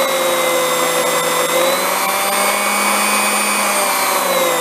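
Homemade mini grinder, a sewing-machine motor spinning a small grinding wheel on a drill arbor, running free with a steady whine. Its pitch rises a little about halfway through and begins to fall near the end as the motor slows.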